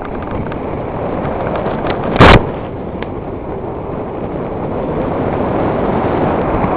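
Bike riding down a loose gravel trail: a steady rumble of wind on the microphone and tyres over the stones, with one loud, sharp knock a little over two seconds in.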